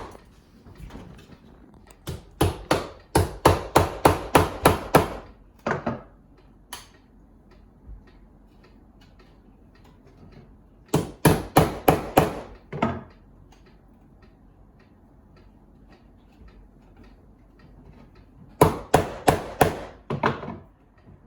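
Hammer tapping on old window woodwork in three quick runs of several blows each, about five blows a second, working loose a sash that paint has sealed in place.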